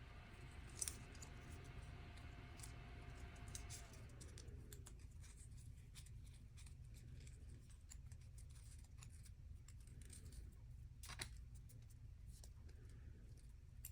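Near silence: a low room hum with a few faint sharp clicks, and a faint steady whine that slides down in pitch and dies away about four seconds in.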